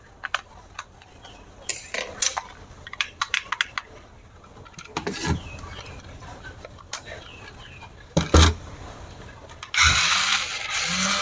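Scattered clicks and knocks of plastic toy parts and packaging being handled, with a heavier thump about eight seconds in. Near the end a loud, steady rushing noise starts suddenly and keeps going.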